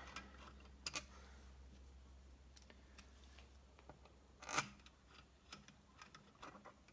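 A few small metallic clicks of bolts and tools being handled, the sharpest about four and a half seconds in, over a low steady hum.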